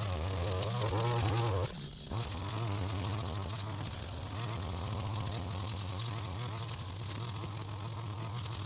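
Strimmer cutting long grass, its motor buzzing steadily with a wavering pitch as it meets the grass; the sound drops away briefly about two seconds in, then picks up again.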